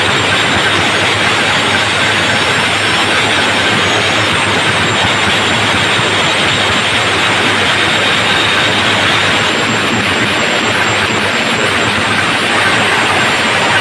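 A DJ speaker stack playing at full power, heard as a steady, heavily distorted roar with no clear beat.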